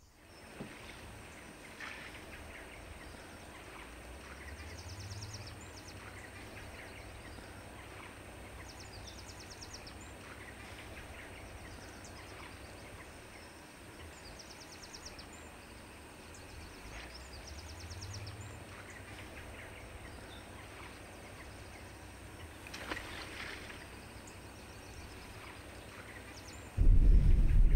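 Quiet open-air lakeside ambience: a low steady wind with birds calling in the distance in short rattling phrases, repeated every few seconds. About a second before the end it jumps to a much louder low rumble of wind buffeting the microphone.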